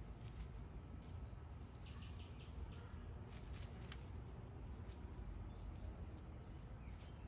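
Outdoor backyard ambience with a steady low rumble. Brief high bird chirps come in a quick cluster about two seconds in, and a few short sharp chirps follow around three and a half seconds.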